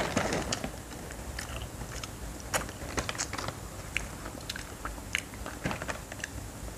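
Crispy fried seaweed snack crunching and crackling as it is chewed and handled, with its plastic snack bag rustling: scattered sharp crunches and crinkles, thickest at the very start.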